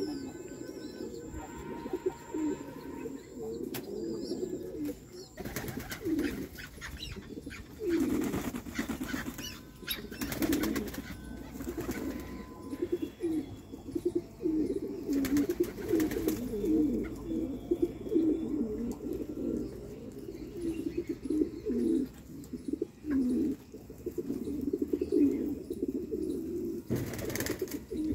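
A flock of domestic fancy pigeons cooing continuously in overlapping low, pulsing calls. A few short flurries of wing flapping break in, about a third of the way in, around the middle, and near the end.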